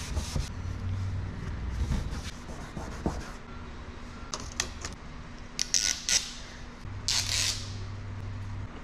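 A wipe rubbing back and forth over the tractor's painted cab roof for about three seconds, then a few light clicks and taps and a short rustle as the surface is measured and the parts are handled.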